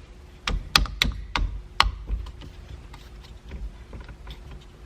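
Several sharp clicks and snaps, about five in the first two seconds and then a few fainter ones, as a steering wheel's horn button and fittings are pressed into place.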